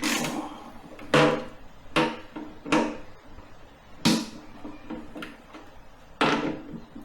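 Metal tools and parts clanking as they are handled and set down, about half a dozen separate knocks, each with a short ring.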